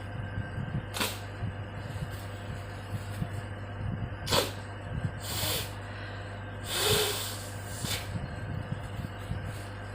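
A woman blowing her nose into a tissue: five separate forceful blows, the longest and loudest about seven seconds in, over a steady low hum.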